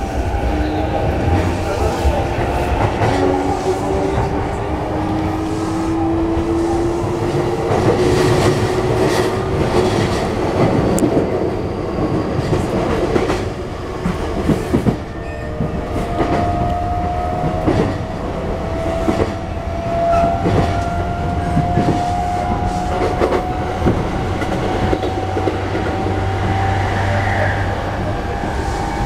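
Running sound inside an E233-1000 series electric train: the Mitsubishi IGBT-VVVF inverter and traction motors whine, the pitch rising slowly as the train picks up speed. Under the whine there is a steady rumble and the clickety-clack of the wheels on the rails.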